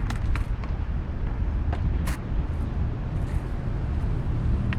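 Steady low rumble with a few short, sharp clacks scattered through it.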